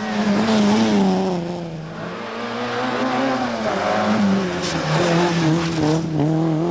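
Peugeot 106 XSI rally car's four-cylinder petrol engine revving hard on a stage, its pitch climbing and dropping several times as it is driven through the gears.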